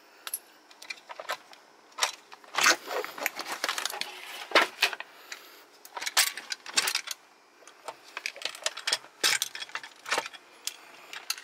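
Irregular clinks and rattles of a car seatbelt's metal hardware and webbing being handled as the old driver's seatbelt retractor is lifted out of the door pillar.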